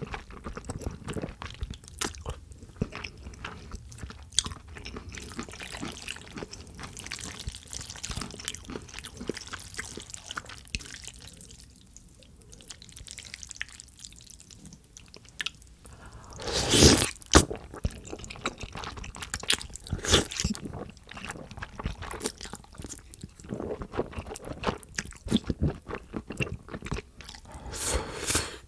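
Close-miked eating of jajangmyeon: wet chewing, smacking and sucking-in of thick noodles coated in sticky black bean sauce, with many short clicks. It is louder for a second or so about seventeen seconds in and again near the end.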